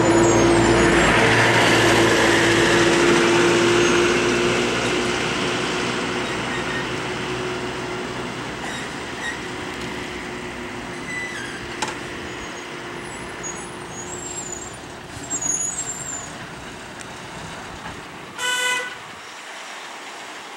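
KSRTC bus's diesel engine running as the bus turns through a hairpin bend, loud at first with a steady drone, then fading as it moves away. A vehicle horn toots once, briefly, near the end.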